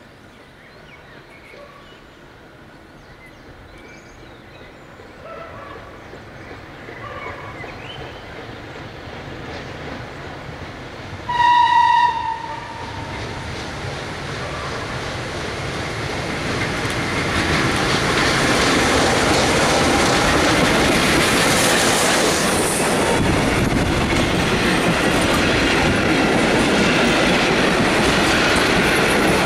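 FS 625 steam locomotive and its vintage carriages approaching and running past. The sound grows steadily louder, a short whistle blast comes a little before halfway, and from about eighteen seconds the carriages' wheels roll by loudly and steadily.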